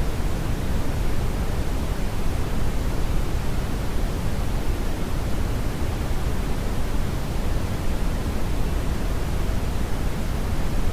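Steady brownian noise: a continuous deep rushing hiss, strongest in the bass and falling away toward the treble, unchanging throughout.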